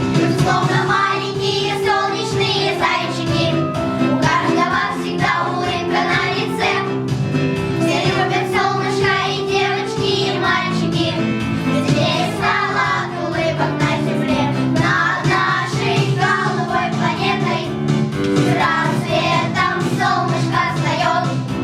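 Children singing a song with instrumental backing music.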